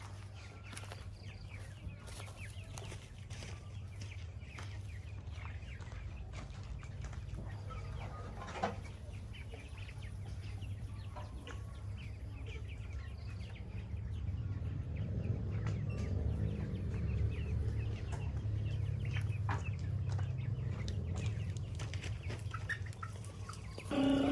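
Domestic chickens clucking, with scattered short clicks and scratches over a steady low hum. A louder low rumble rises in the second half.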